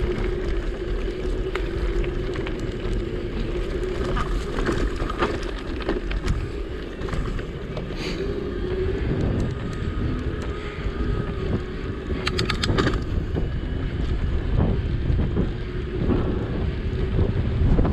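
Wind buffeting an action camera's microphone during an electric-bike ride, over a steady hum from the moving bike, with a short run of clicks about twelve seconds in.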